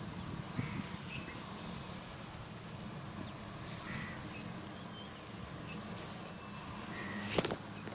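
Outdoor background noise: a steady low hum with a few faint short chirps, and a sharp knock near the end.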